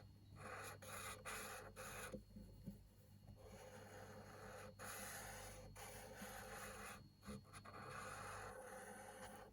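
Faint scratching of a chisel-tip marker stroked across paper while colouring in, in repeated strokes with brief pauses between them.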